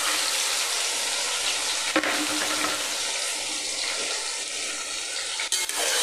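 Marinated chicken sizzling in hot oil in a metal pot, with a spoon knocking against the metal about two seconds in and again near the end.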